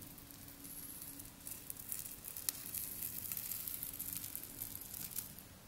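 Fingertips pressing into the crusted, bubbly top layer of clear sugar-syrup slime, giving a fine crackling of many small clicks. The crackling thickens about a second and a half in and stops near the end.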